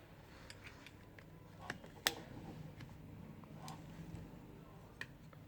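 A few scattered, sharp clicks and taps of small repair tools on a smartphone's parts during disassembly, the loudest about two seconds in.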